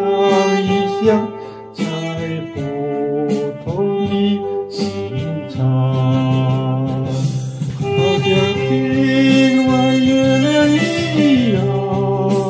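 Instrumental music with a sustained lead melody over a band backing and a light steady beat.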